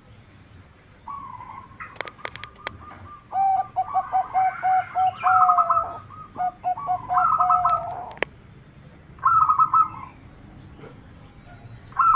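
Zebra doves (perkutut) cooing: rapid runs of short, evenly spaced notes, two birds' calls overlapping at different pitches, in bursts with brief pauses. A few sharp clicks come about two seconds in and again just after the eight-second mark.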